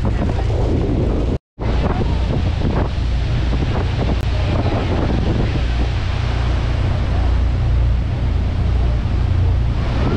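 Heavy wind buffeting the microphone over a steady, loud rush of water. The sound cuts out completely for a moment about a second and a half in.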